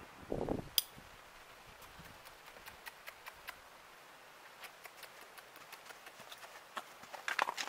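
A young horse walking on frozen dirt, wearing a western saddle: scattered light hoof taps and tack clicks, with a louder cluster of taps near the end. A brief louder noise comes about half a second in.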